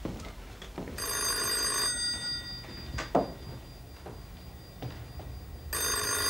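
Bell of a rotary-dial telephone ringing twice, each ring just under a second long, the second starting about five seconds after the first. A single sharp knock falls between the rings and is louder than them.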